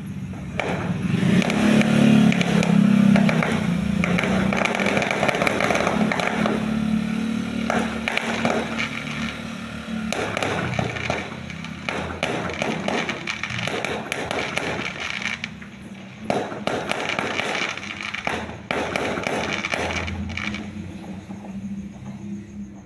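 Fireworks going off in quick succession: a dense run of bangs and crackling that thins out about twenty seconds in.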